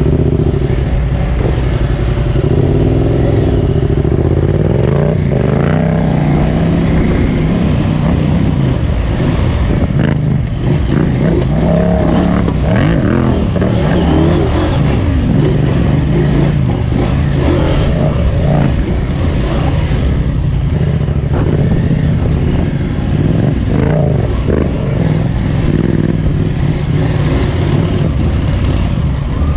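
Adventure motorcycle's parallel-twin engine running under load off-road, its revs rising and falling several times.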